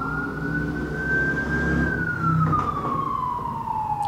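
Emergency vehicle siren wailing: a slow rise that peaks about two seconds in, then a long falling glide, over a low rumble that drops away about halfway through.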